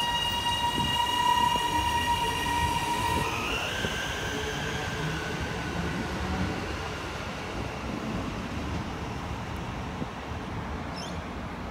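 High Capacity Metro Train electric multiple unit accelerating, its traction motors and inverters whining over the rumble of wheels on rail. A steady set of tones changes about three seconds in to higher tones that rise in pitch as the train gathers speed.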